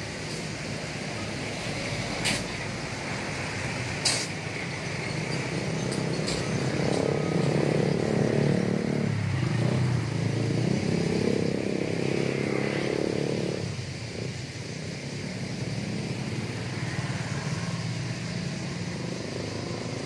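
Street traffic: a motor vehicle passes close by, swelling and fading over several seconds in the middle, over a steady hiss of outdoor noise. Two sharp clicks in the first few seconds.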